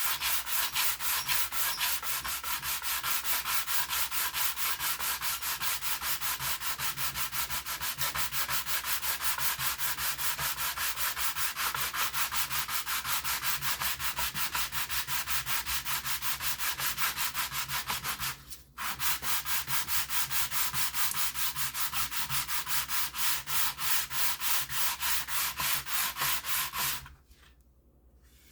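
Styrene plastic sheet being sanded by hand with rapid, even back-and-forth strokes to true up its edges. The strokes break off briefly about two-thirds of the way through, then resume and stop near the end.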